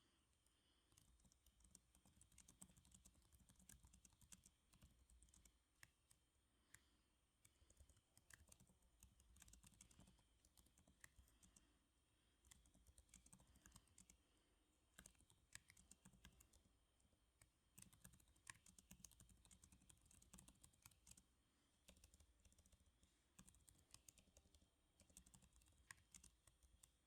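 Faint typing on a computer keyboard, key clicks coming in runs of a few seconds with short pauses between them.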